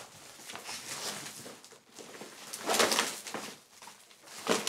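Flexible aluminium foil ducting crinkling and rustling as it is pushed through a fabric vent port, with louder bursts about three seconds in and again near the end.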